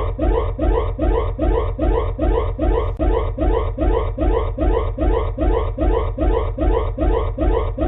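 Emergency-alert-style alarm tone: a synthesized whoop that rises in pitch and restarts over and over, about two and a half times a second, over a steady low drone.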